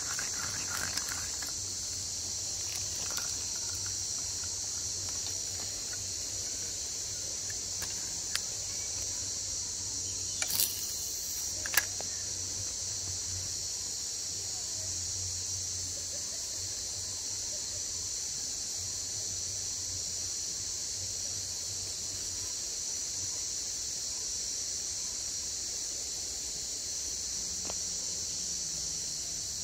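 Steady, high-pitched insect chorus of crickets and similar insects, shrilling without a break. A few sharp clicks sound about ten to twelve seconds in, the loudest near twelve seconds.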